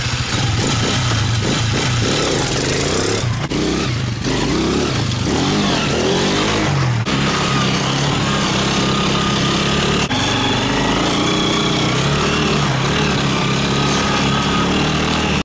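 250 cc sport ATV engine running hard and revving up and down as the quad is ridden, with its pitch rising and falling throughout.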